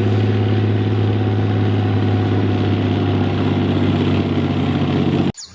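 A machine running with a steady, unchanging low hum that cuts off suddenly about five seconds in.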